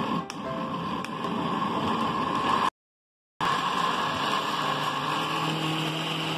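Philips Walita countertop blender running at speed, chopping raw beetroot chunks into egg, sugar and oil batter until it is a smooth puree. The steady motor and whirring cut out completely for under a second about three seconds in, then carry on.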